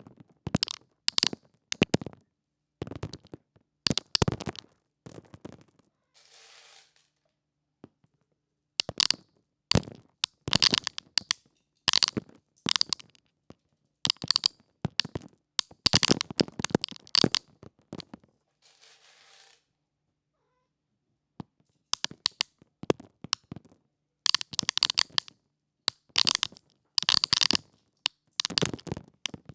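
Chickens pecking at dry corn kernels: bursts of quick clicking taps with short pauses between them, and two brief rustling hisses.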